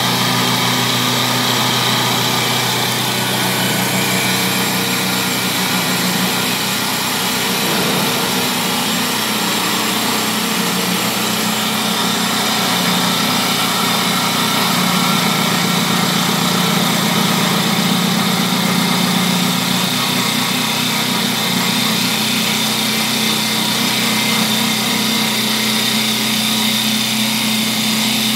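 Double-axis CNC wood lathe running steadily, spinning two baseball bat blanks as its cutters turn the wood, a constant motor hum under the hiss of cutting.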